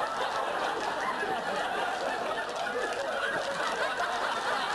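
Studio audience laughing continuously.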